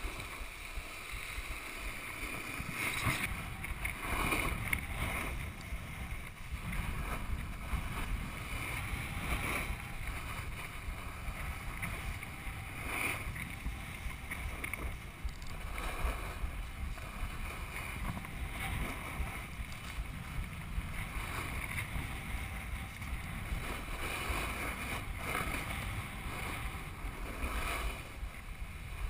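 Snowboard sliding over packed snow, its edge scraping louder at each turn every couple of seconds, over a steady low rumble of wind on the microphone.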